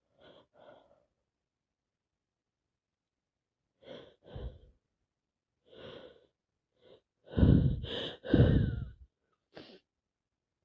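A woman with a cold taking short, catching breaths, then sneezing twice in quick succession near the end, followed by a short breath.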